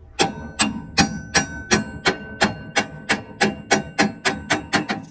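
Hammer blows on steel: about fifteen evenly spaced strikes, roughly three a second, each ringing briefly, coming slightly quicker near the end.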